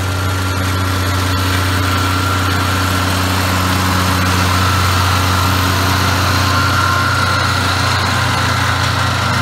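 John Deere 4250's six-cylinder turbo diesel running steadily under load, pulling a trailed mower through standing grass. There is a constant low drone with a thin high whine over it, and it grows a little louder as the tractor passes close by.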